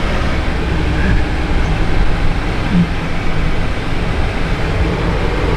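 Car engine and road noise, a steady low rumble.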